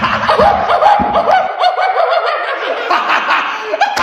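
A young man laughing hard and loud.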